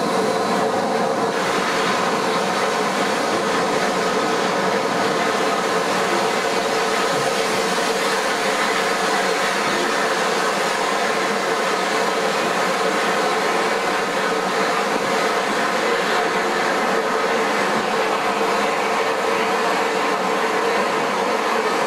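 Bulleid West Country Pacific 34046 Braunton letting off steam: a loud, steady hiss with a held ringing tone in it, which does not change as the train slows to a stand.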